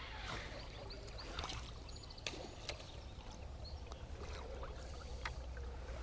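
Water lapping and swishing around a small boat on a river, over a low steady rumble, with a few sharp ticks scattered through.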